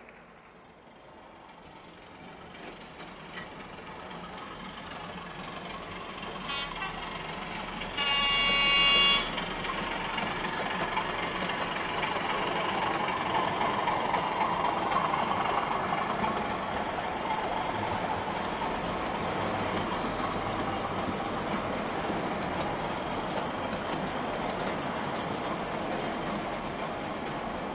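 DCC sound-fitted OO gauge model diesel locomotive and its wagons running on the track, growing louder as the train approaches. The locomotive's horn sounds once for about a second, about eight seconds in, after which the engine sound and wheel noise run on steadily.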